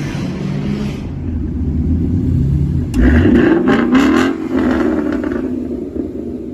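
Car engine running through a loud aftermarket exhaust: a steady rumble, then about three seconds in the throttle opens sharply and the revs climb, before the sound eases off and fades near the end.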